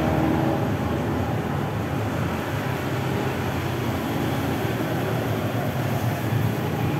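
Steady rumble of busy road traffic and moving-vehicle noise, with no distinct events.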